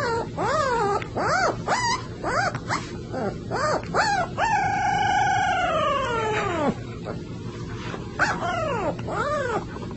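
A young puppy howling: a run of short yips that rise and fall in pitch, then one long howl of about two seconds that slides down at the end, then a few more short yips.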